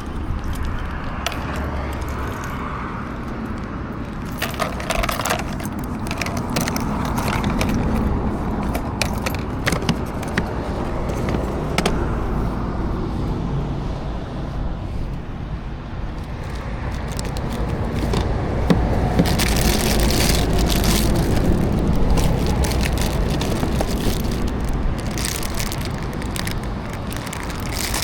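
Motorcycle on the move: a steady low engine and road rumble under rushing noise, with scattered clicks and crackles and a louder hiss that swells about twenty seconds in.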